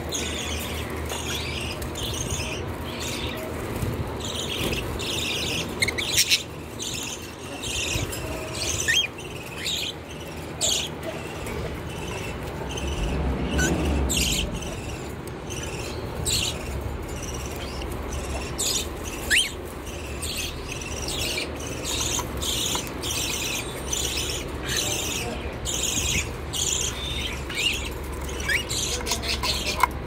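A cage of cockatiels and other small parrots chirping: many short, high chirps repeating a few times a second, with a few sharp clicks and a low rumble about halfway through.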